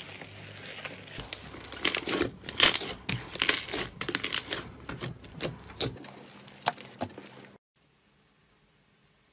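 Red slime being stretched out of a tub and then pressed and kneaded by hand, making a fast run of sticky crackles and clicks. It cuts off suddenly near the end.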